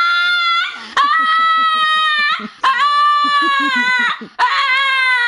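A dog making long, drawn-out whining howls, one after another: the tail of one call, then three more of about a second and a half each, each sagging slightly in pitch toward its end.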